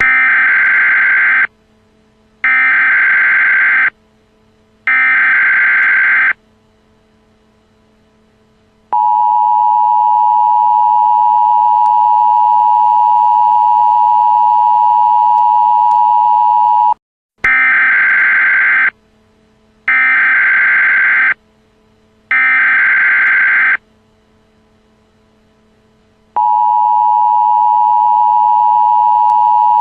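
Emergency Alert System signal: three short bursts of the screechy data header, about a second apart, then the long steady two-tone attention signal. Just past the middle it cuts out briefly and the sequence repeats, three bursts and then the attention tone again near the end.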